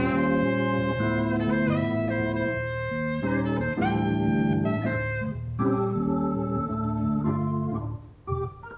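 Jazz played on an electric keyboard with an organ sound, holding sustained chords, together with a saxophone. A little before the end the music drops in level and turns to shorter, choppier notes.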